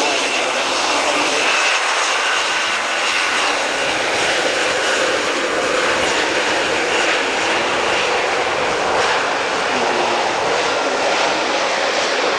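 Airbus A400M's four TP400-D6 turboprop engines running steadily, their eight-blade propellers turning, as the aircraft moves along the runway. A steady high whine sits over the propeller noise for the first few seconds.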